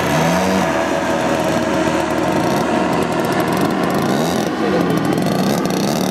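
Engine of a Katana radio-controlled aerobatic model plane running as it taxis on grass, its note dipping and rising a few times with throttle changes.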